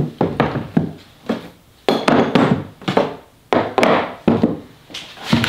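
Manual ratchets and Milwaukee M12 battery ratchets being picked up, slid and set down on a plywood workbench top: a string of irregular knocks and clunks with short scraping slides between them.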